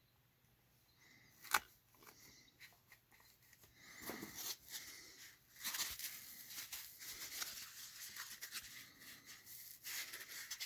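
A sharp click about a second and a half in, then, from about four seconds in, irregular rustling and crinkling of packaging being handled.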